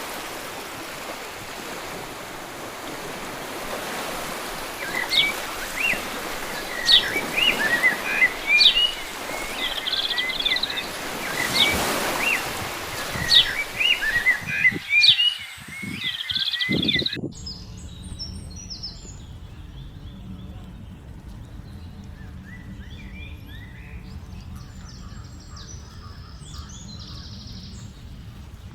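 Small birds chirping and calling over a steady rushing noise. About two-thirds of the way through, the rushing stops abruptly, and fainter, higher bird calls go on over a low hum.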